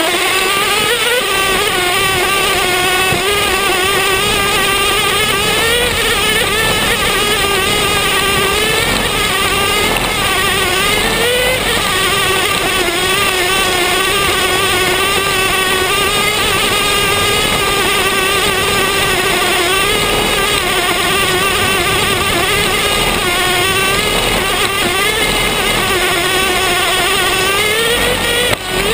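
Traxxas T-Maxx's two-stroke nitro engine running hard as the truck is driven, heard close up from on board: a steady high-pitched buzz whose pitch wavers and briefly climbs as the throttle changes, with a short dip near the end.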